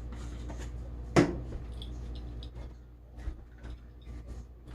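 A man coughs once, sharply, about a second in, the seasoning dust catching in his throat; faint clicks and taps follow over a steady low hum.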